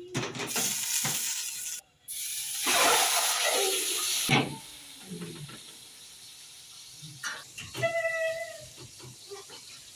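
Whole stuffed chicken lowered into hot oil in a large cooking pot, sizzling loudly for about four seconds with a brief break near two seconds in. The sizzling then cuts off sharply, leaving quieter background sound.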